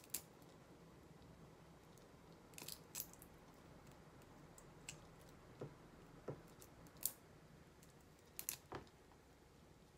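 Faint, scattered crackles and clicks of a raw shrimp's shell being peeled off by hand, with a small cluster near the end.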